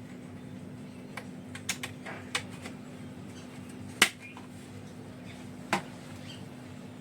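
About six sharp clicks or taps at irregular intervals, the loudest about four seconds in, over a steady low hum.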